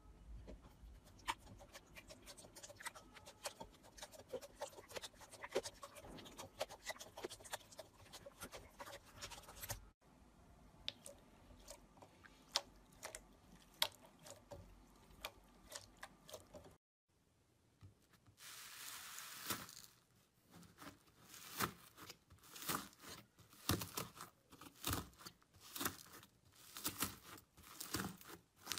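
Slime being squeezed and kneaded by hand, with faint scattered sticky clicks and pops. About two-thirds in, a short hiss, then louder, denser crackling as fingers press and break into a crumbly blue slime.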